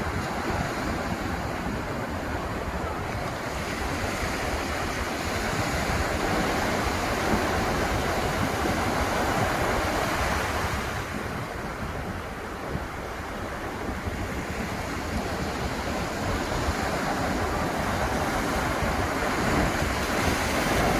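Ocean surf: waves breaking and washing in as a steady rush that swells, eases about halfway through, and builds again near the end, with wind rumbling on the microphone.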